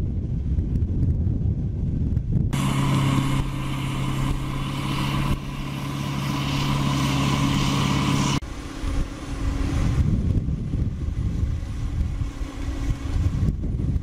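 Caterpillar D9R bulldozer's diesel engine running under heavy load as it pushes, a steady droning note that comes in abruptly a couple of seconds in and drops back abruptly about six seconds later, over a low rumble.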